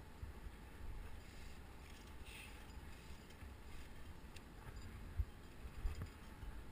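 Faint low wind rumble on the camera microphone, with a few soft, brief clicks near the end.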